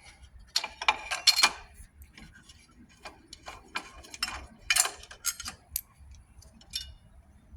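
Scattered sharp metallic clicks and clinks of hand tools working on the engine while the water pump housing is being unbolted, in a few short clusters.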